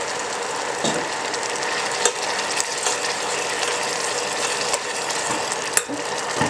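Dark sauce bubbling and sizzling in a small stainless saucepan on an induction cooktop: a steady crackle. A metal spoon stirring it clinks sharply against the pan three times.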